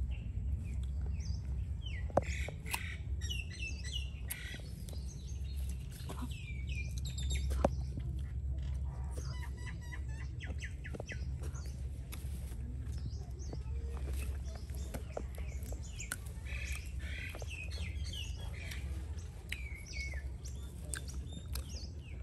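Small birds chirping over and over, with short high calls scattered throughout, above a steady low rumble. Two sharp clicks stand out, one about two seconds in and one about seven and a half seconds in.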